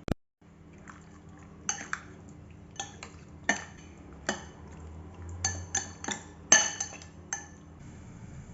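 A metal kitchen utensil clinking against cookware: about ten irregular, sharp clinks that ring briefly, over a low steady hum.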